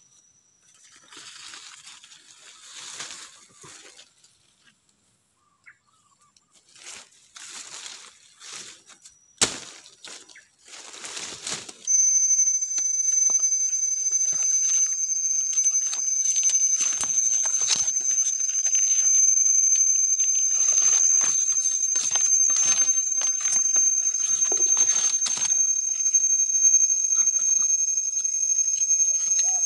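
Leaves and twigs rustling under hands, with a sharp click a little before ten seconds in. About twelve seconds in, a cicada starts a loud, steady, high-pitched whine that does not let up.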